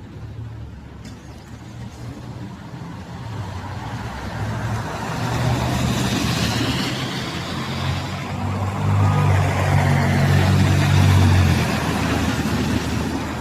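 A motor vehicle's engine and road noise, building up over several seconds, loudest about nine to eleven seconds in, then easing slightly.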